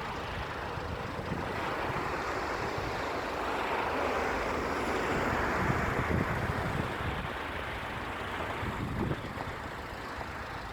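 Road vehicle going past, its tyre and engine noise swelling to a peak about halfway through and then fading.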